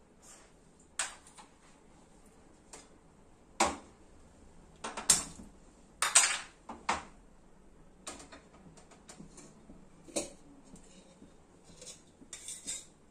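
Kitchen utensils and dishes being handled: a scattering of separate clinks and knocks, with a busier cluster in the middle and a short flurry near the end.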